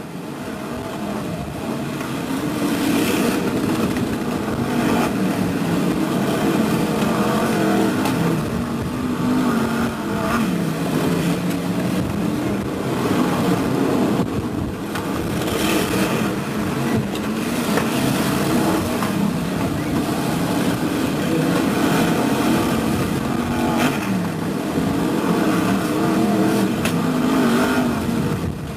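BriSCA F1 stock cars racing in a pack, their V8 engines revving continuously, the engine pitch rising and falling as the cars pass and accelerate out of the bends.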